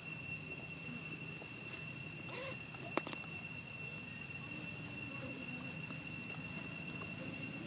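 Steady high-pitched insect drone over outdoor background noise, broken by a single sharp click about three seconds in.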